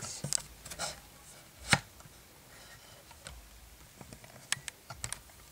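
Handling noise: a few scattered light plastic clicks and knocks as a built Lego model and its box are moved about on a Lego baseplate, with one sharper knock nearly two seconds in.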